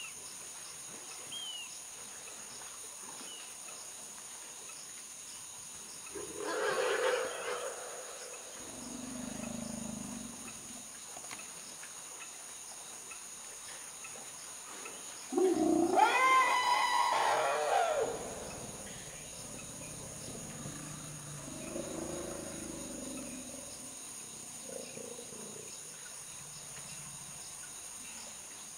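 African forest elephants calling: a rough, noisy roar about six seconds in, then deep low rumbles. The loudest call comes about halfway through: a loud pitched call of about two and a half seconds that rises and then falls, followed by more soft rumbles.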